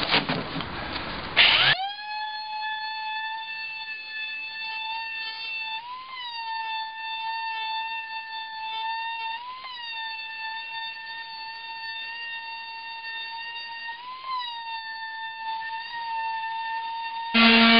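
A short stretch of rough noise, then a steady high-pitched tone with overtones, like a held musical note, lasting about fifteen seconds and rising briefly in pitch three times. Near the end it cuts off as the loud hum of an electric palm sander comes in.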